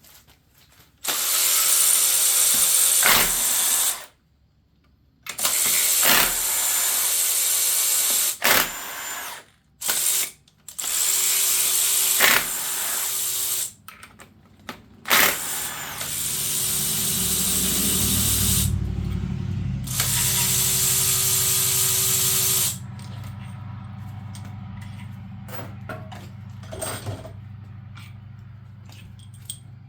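Cordless power tool, such as an electric ratchet or driver, running in five bursts of a few seconds each as it spins fasteners off the engine. From about halfway a low steady hum comes in and continues to the end.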